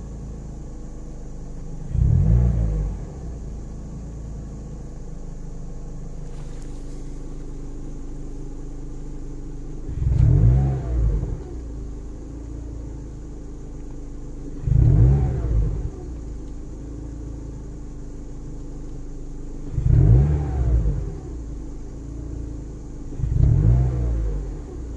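2011 Mazda NC Miata's 2.0-litre four-cylinder engine idling, with the throttle blipped briefly five times a few seconds apart. The owner suspects a vacuum leak.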